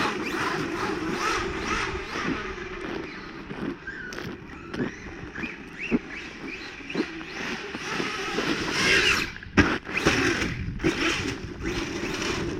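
Brushless electric RC car's motor whining up and down in pitch as it is driven hard, with tyre and gravel noise and several sharp knocks of the car hitting the ground, the loudest just under ten seconds in.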